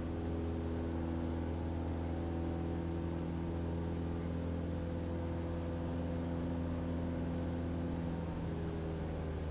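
Cessna 172 Skyhawk's piston engine and propeller droning steadily in the cockpit during flight, with a faint high steady whine above the drone.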